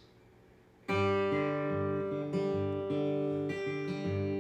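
Guitar starting a song's intro: after a short silence, strummed chords come in about a second in, with bass notes changing under them at a steady beat.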